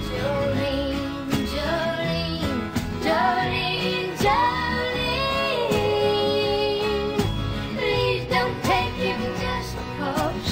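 Country music: a woman's voice sings long, sliding notes over a guitar-led band accompaniment.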